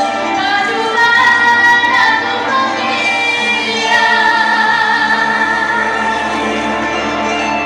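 A woman singing a song over musical accompaniment, holding a long note in the middle.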